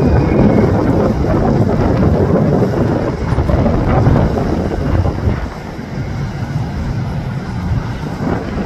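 Jet noise from a departing Boeing 767-300ER freighter's two General Electric CF6 turbofans at climb power: a deep, steady roar that eases a little after about five seconds as the jet draws away. Wind buffets the microphone throughout.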